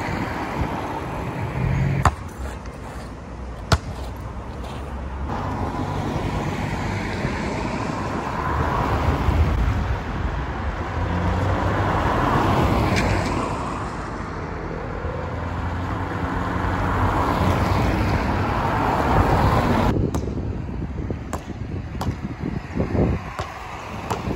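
Cars driving past on a wet road, the traffic noise swelling and fading with each pass. A few sharp knocks are heard near the start and several more in the last few seconds.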